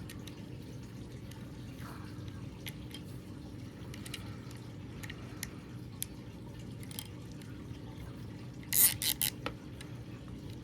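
Hand-handling clicks and taps of replica sword-hilt parts being fitted and zip-tied, light and scattered, with a quick run of several louder sharp clicks about nine seconds in.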